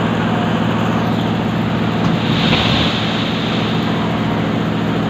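Heavy diesel truck engine running steadily under load, with a short hiss about two and a half seconds in.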